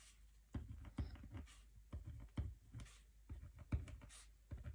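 Pen writing on a sticker sheet laid on a wooden desk: faint short scratching strokes mixed with irregular light taps and clicks of the pen and hand.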